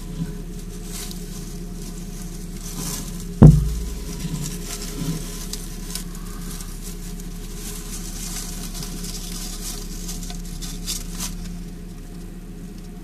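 Faint crackling rustle of shredded-paper bedding over a steady low hum, with one sharp thump about three and a half seconds in.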